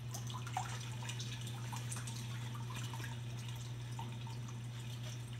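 Reef aquarium's circulating water trickling and dripping, in many small irregular drops, over a steady low hum.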